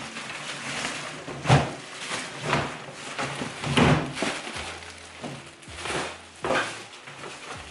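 Black plastic bin bag rustling and crinkling as rubbish is stuffed into it, with several dull knocks about a second apart.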